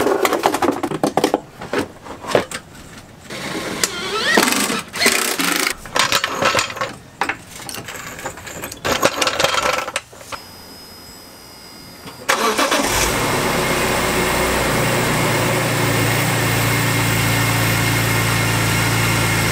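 Irregular knocks and plastic clatter as the front under tray of a BMW E46 M3 is handled and fitted. About twelve seconds in, the car's S54 straight-six starts and settles into a steady idle. This is its first run after a new oil cooler was fitted and primed.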